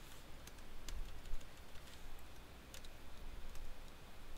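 Computer keyboard keys clicking irregularly as someone types and taps keys, faint and scattered.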